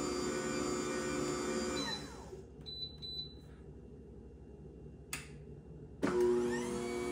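AMZCHEF two-speed horizontal masticating slow juicer's motor running with a steady hum, then switched off, its whine falling in pitch as it winds down just under two seconds in. A single click about five seconds in, then the motor starts again abruptly about six seconds in and settles back to a steady hum.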